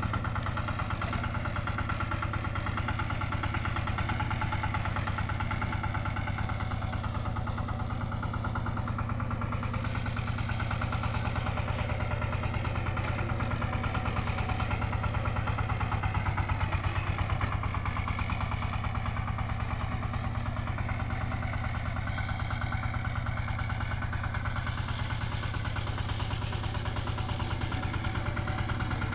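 Engine of a two-wheel walk-behind tractor (power tiller) running steadily with an even, rapid beat while it pulls a loaded-down wooden cart.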